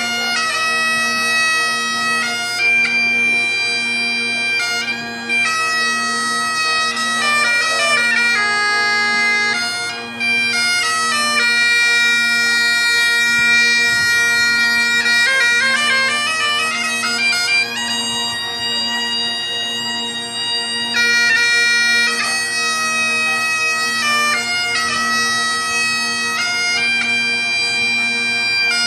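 Bagpipe played solo: a melody of long held notes over the steady drones, broken by quick runs of grace notes.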